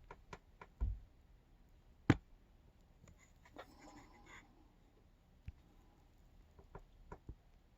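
Faint handling noise: scattered light clicks and taps, with a dull thump near one second and one sharper click about two seconds in.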